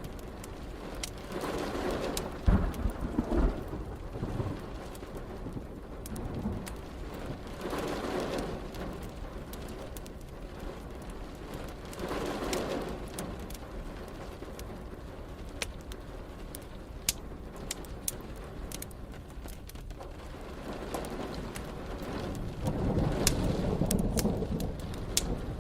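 Steady rain with rolling thunder: a loud rumble with low thumps a couple of seconds in, fainter rolls around a third and half of the way through, and a long rumble near the end. Scattered sharp crackles of a wood fire.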